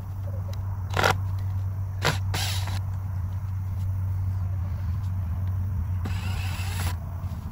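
Cordless drill/driver running in short bursts, driving screws on the automatic coop door's wooden mounting: about half a second just after two seconds in, and a longer burst near the end. A sharp click comes about a second in, and a steady low rumble lies underneath.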